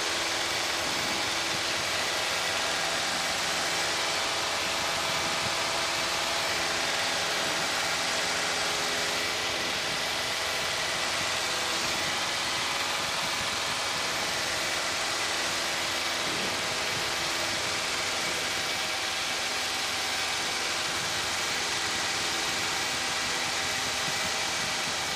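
Piper PA-28-151 Cherokee's four-cylinder Lycoming engine and propeller droning steadily in flight, at a constant pitch and level.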